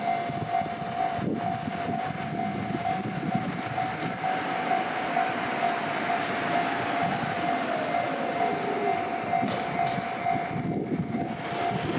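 Japanese level-crossing warning bell ringing in a steady repeating ding while a train passes over the crossing with a loud rushing rumble.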